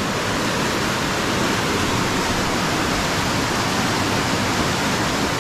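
Fast, muddy floodwater rushing through a flooded creek channel: a strong, steady rush of water.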